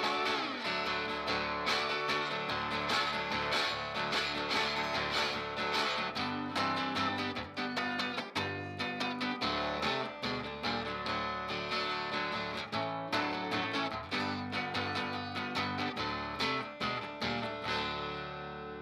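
Steel-string acoustic guitar played blues-style with a metal slide, picked in a steady rhythm with sliding, wavering notes. These are the closing bars of the song, ending on a last chord left to ring and fade.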